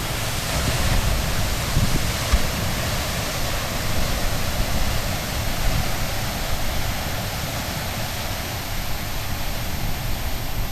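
Steady rush of ocean surf, with wind buffeting the microphone as a flickering low rumble.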